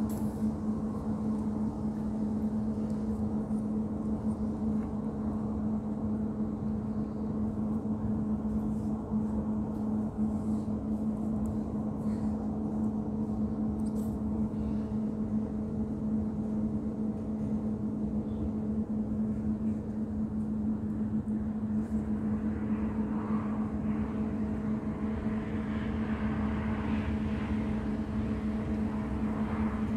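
A steady machine hum holding one low pitch throughout. From about two-thirds of the way in, the noise of a car on the road grows louder.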